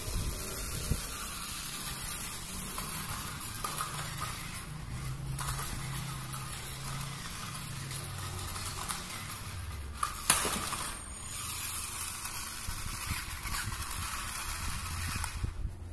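A battery-operated toy bee on wheels running, its small motor and gears whirring steadily, with a sharp knock about ten seconds in.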